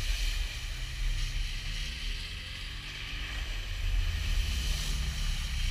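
A Subaru car driving hard through a deep mud hole, its engine running under load while muddy water splashes and sprays around it.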